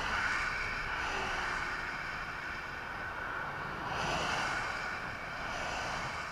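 Cars passing one after another on an interstate highway, each a whoosh of tyre and engine noise that swells and fades: at the start, about four seconds in, and again near the end.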